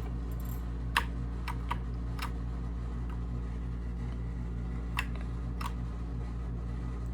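Keys pressed on a TMKB GK61 mechanical keyboard to cycle its backlight modes: a few separate clicks, four within the first couple of seconds and two more around five seconds in, over a steady low hum.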